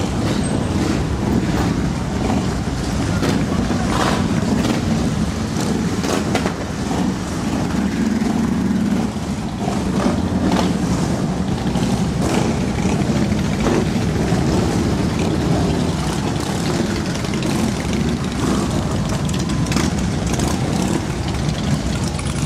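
A column of motorcycles, mostly large touring and cruiser bikes, riding past slowly at low revs, their engines running together in a steady low drone.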